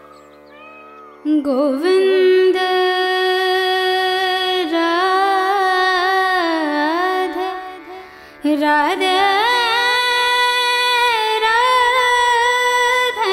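Devotional Krishna bhajan: a solo voice sings long, wavering, ornamented notes over a steady drone. The song comes in after about a second, pauses briefly about eight seconds in, and then carries on.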